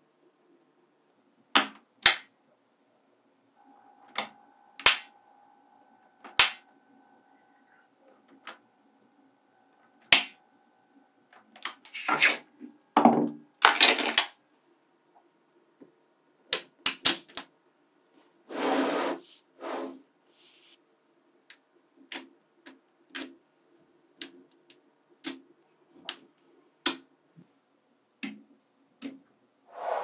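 Small magnetic balls clicking and snapping together as panels of them are handled and joined, in scattered sharp clicks with two brief bursts of clattering in the middle.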